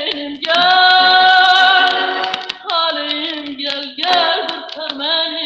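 A woman's voice singing an Azerbaijani song, played from an old vinyl gramophone record. She holds one long note from about half a second in, then goes on with shorter phrases.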